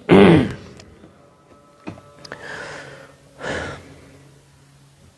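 A man's short voiced sound at the start, then two breaths into a close handheld microphone about two and three and a half seconds in, with a faint click between.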